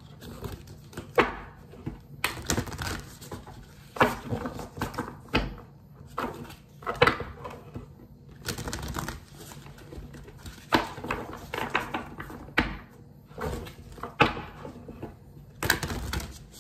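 A deck of oracle cards being shuffled and handled by hand: a series of sharp card taps and short rustles, one every second or two.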